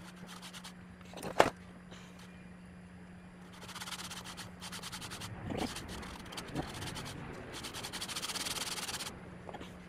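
Hand work on small metal parts: a sharp click about a second and a half in, then several seconds of scraping and rubbing with a few light knocks, over a steady low hum.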